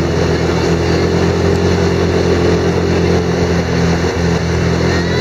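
ATV engine running steadily at cruising speed, its pitch holding level, over a steady rushing noise from the moving ride.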